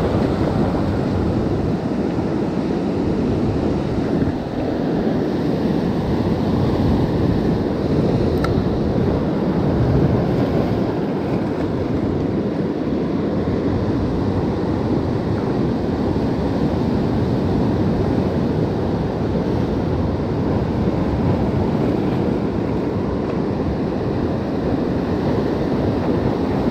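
Ocean surf washing against a rocky shore, heard as a steady, unbroken wash, with wind blowing across the microphone.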